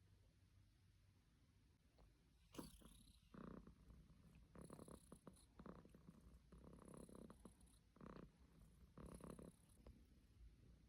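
Cat purring softly in rising and falling waves about a second long, starting a few seconds in, with a single sharp click just before.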